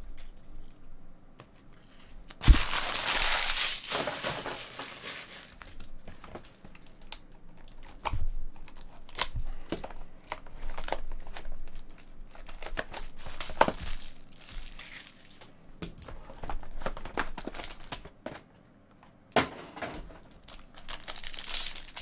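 Foil trading-card pack wrappers crinkling and tearing as packs are opened and crumpled by hand. A sharp thump comes about two and a half seconds in, followed by dense crinkling, then scattered crinkles and clicks.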